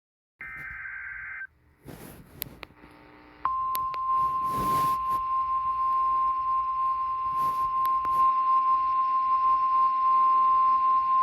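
NOAA Weather Radio Emergency Alert System broadcast: a brief warbling SAME digital header burst about half a second in, a couple of seconds of radio static and crackle, then from about three and a half seconds in the steady 1050 Hz Weather Radio alert tone over receiver hiss. The tone marks the start of a warning, here a flash flood warning.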